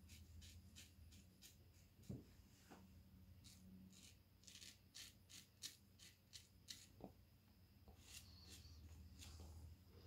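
Faint rasping of a Valet AutoStrop safety razor cutting lathered stubble, in quick runs of short strokes with a brief pause near the end, and a couple of soft knocks.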